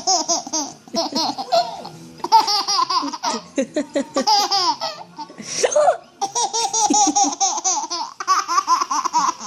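An 11-month-old baby laughing hard in about seven runs of rapid, high-pitched laughs, each run about a second long with short pauses for breath between.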